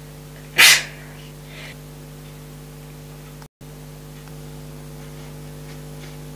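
Steady electrical hum and hiss of the recording, with one short, loud burst of breathy noise under a second in and a brief dropout about three and a half seconds in where the sound cuts out.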